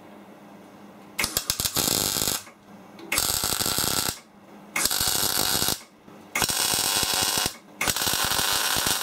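MIG welding arc crackling on steel from a Clarke 160EN welder with an MB25 Euro torch, in five short runs of about a second each with brief pauses between. The first run, just over a second in, starts raggedly before settling.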